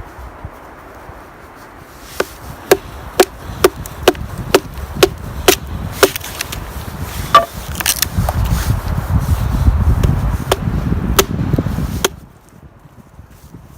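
Wood being chopped, a steady run of sharp strikes about two a second, each with a short ring. After that comes a few seconds of low rumbling noise that cuts off suddenly.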